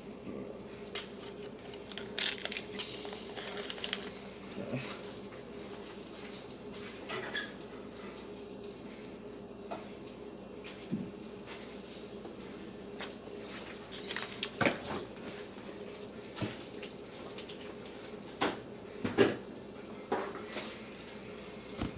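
Sausage and butter frying in a skillet: a steady sizzle with scattered crackles and a few sharper pops or clicks in the second half.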